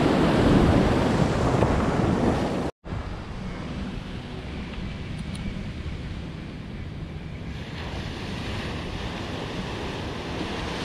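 Ocean surf breaking on the beach, with wind buffeting the microphone. The sound cuts out for an instant about three seconds in and carries on quieter.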